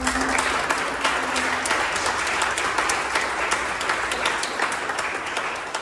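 Audience applauding: many hands clapping at once, dense and steady, thinning out near the end.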